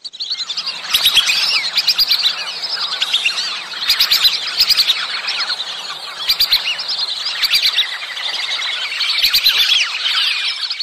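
A flock of whistling ducks calling, a dense chorus of many high, short whistles overlapping without a break.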